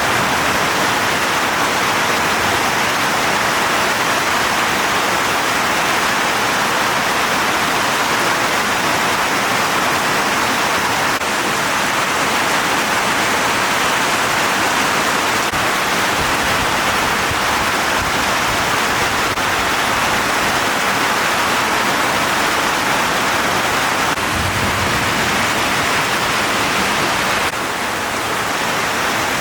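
Heavy rain falling, a steady dense hiss, a little quieter near the end.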